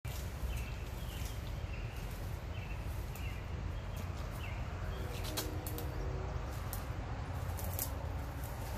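Woodland ambience: a small bird repeats short high chirps while wind rumbles steadily on the microphone. In the second half, footsteps swish and snap through grass and brush as someone walks up.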